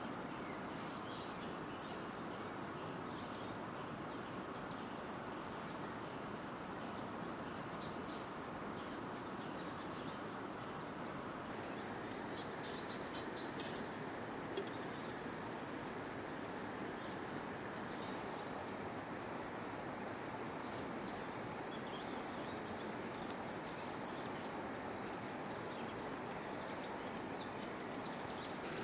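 Steady outdoor ambience of flowing river water, with faint high chirps and ticks scattered over it. Two soft knocks come about halfway through and near the end.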